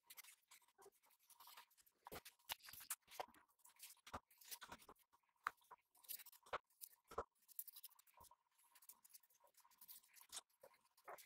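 Quiet handling sounds: scattered small clicks, taps and scrapes as the steel axe tang and wooden handle scales are picked up and set down.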